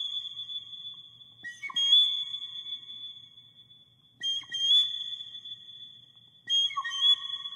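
Background music of Native American flute: high, whistle-like held notes that ring on and overlap, with a new phrase entering every two seconds or so.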